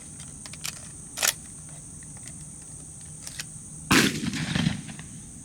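A single shotgun shot about four seconds in, its report trailing off over most of a second, fired at a passing dove. A steady high buzz of crickets and other insects runs underneath, with a few small clicks before the shot.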